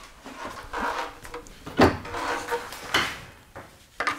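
Knocks and clatter of a bike frame and an air die grinder being picked up and handled on a workbench, with the two loudest knocks about two and three seconds in.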